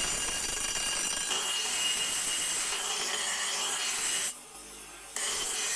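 A power grinder grinding steel: a steady abrasive hiss with a thin high whine. It breaks off about four seconds in and starts again about a second later.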